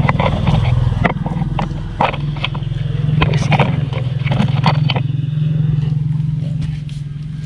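Sharp metallic clicks and scrapes of a wrench straining on a very tight brake master cylinder bracket bolt, over a steady engine drone. The clicks crowd the first five seconds and then thin out.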